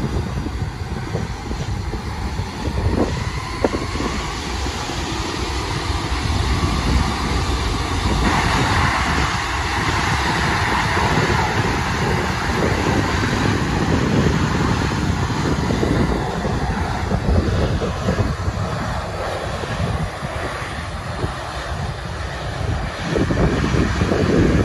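Boeing C-17 Globemaster III's four turbofan engines running as the transport taxis, a steady jet whine and rush that grows louder about eight seconds in and eases again later. Heavy wind rumble on the microphone underneath.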